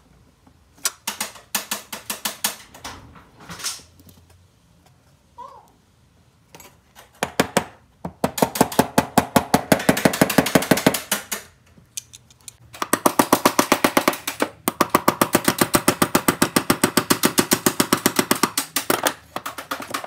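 Hand ratchet with a driver bit clicking as set screws are run into a steering-lock housing. A few short bursts of clicks come first, then two long runs of fast, even clicking with a short pause between.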